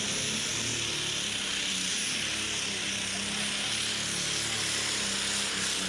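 Super stock pulling tractor's turbocharged diesel engine running at full power as it drags the weight-transfer sled down the track: a steady, high-pitched engine and turbo noise.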